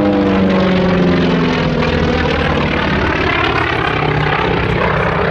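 Grumman FM-2 Wildcat's Wright R-1820 Cyclone nine-cylinder radial engine and propeller droning as the fighter flies past overhead. Its pitch falls over the first couple of seconds, then the drone holds steady.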